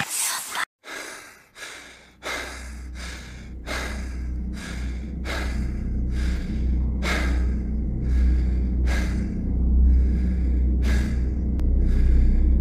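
Fast, heavy breathing, about two breaths a second, growing louder after a brief hush near the start, over a steady low drone.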